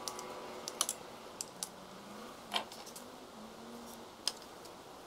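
Scattered light clicks and taps, about half a dozen, as flexible orange plastic trim strips are handled and pressed into the slots of the 3D printer's aluminium extrusion frame.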